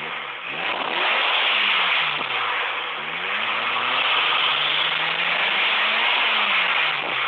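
Nissan SR20DET turbocharged four-cylinder engine, fitted with a Garrett GT35R turbo, being revved in the open engine bay with a loud hiss over it. The revs climb about a second in and drop back, then rise again and hold for a couple of seconds before falling near the end.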